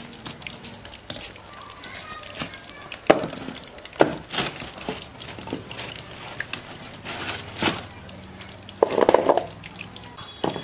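A metal slotted spoon knocking and scraping against an iron kadhai as egg pakoras fry, over a low steady background. There are a few sharp clinks, the loudest about three and four seconds in, and a short louder clatter near the end.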